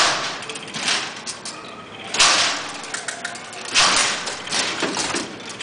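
Babbage Difference Engine No. 2, hand-cranked, its metal mechanism rattling and clacking throughout, with three loud clattering surges about two seconds apart as the carries run through the number columns.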